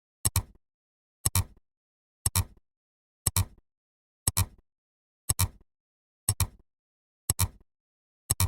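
A short, sharp double click repeating evenly once a second, nine times: a sound effect ticking off each number as the count goes up.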